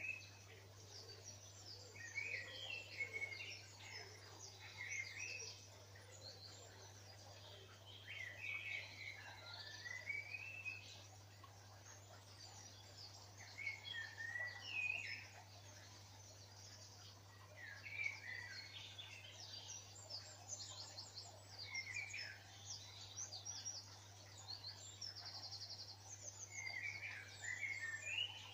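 Dawn chorus of songbirds. One bird repeats a short song phrase every few seconds, and quick high trilling notes come from others in between, over a steady low hum.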